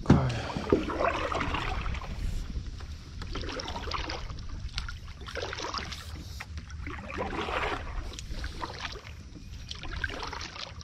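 Kayak paddle strokes in calm water: the blade dipping and pulling with splashes and drips every second or two, over a low steady rumble. A sharp knock right at the start is the loudest sound.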